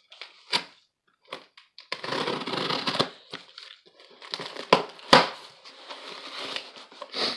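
Packing tape on a cardboard shipping box being slit with a small hand cutter, with scraping, tearing and crinkling of tape and cardboard. Two sharp snaps about five seconds in are the loudest sounds.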